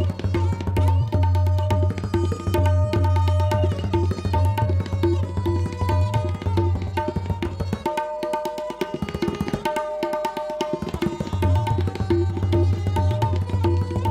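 Tabla solo: fast, dense strokes on the pitched right-hand drum and the bass drum. The deep bass drops out for about three seconds a little past the middle, then returns.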